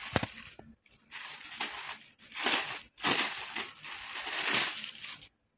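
Clear plastic polybag crinkling as it is handled and pulled open, in a run of rustling bursts that stop about half a second before the end.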